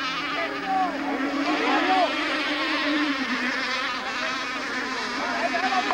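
Several radio-controlled model racing boats with small two-stroke engines buzzing at high revs, their pitches rising and falling in overlapping sweeps as they pass and turn.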